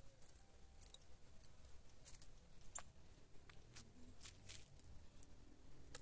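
Faint, scattered short high-pitched chirps and ticks of small birds, over near silence.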